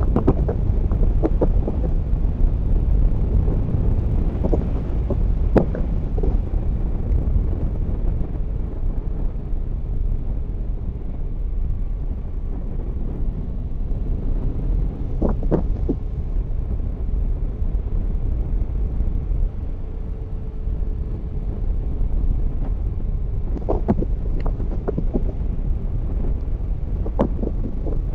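Motorcycle riding at speed: steady wind rush over the microphone mixed with engine and road noise, with a few brief knocks.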